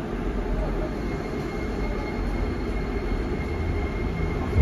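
Toei Oedo Line 12-600 series linear-motor subway car pulling away from a station, heard from inside the car: a low running rumble, with a thin, steady high whine from its Hitachi SiC inverter coming in about a second in.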